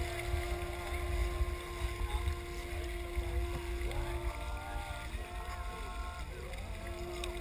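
Long, steady pitched tones held at several different pitches, one lasting about four seconds before others take over, over a low rumble of wind on the microphone.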